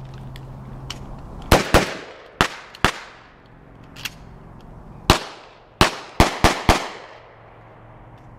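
Shotgun fire on a range: about nine loud shots in two quick clusters, four from about one and a half to three seconds in and five from about five to seven seconds in, each followed by a short ringing tail.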